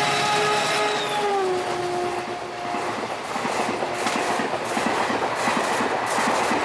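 Express train passing at speed: the diesel locomotive's horn sounds a chord that drops in pitch as it goes by and stops about three seconds in, then the coaches rush past with a rapid clickety-clack of wheels over rail joints.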